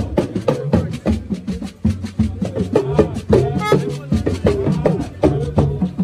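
Music with a busy, driving drum beat over a steady bass line, with voices in it.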